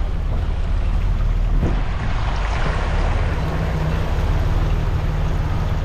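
A vehicle driving through deep floodwater: water rushing and splashing up from the tyres, over a steady low rumble. The splashing swells about two seconds in.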